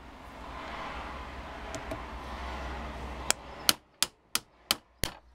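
A hammer strikes a hand impact screwdriver in a run of sharp metallic blows, about three a second, starting about three seconds in. The blows are nipping up the screws on a Bosch starter motor's end housing.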